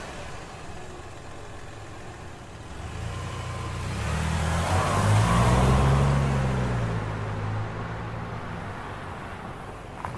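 Car engine running as a car drives, growing louder to a peak about halfway through and then fading away.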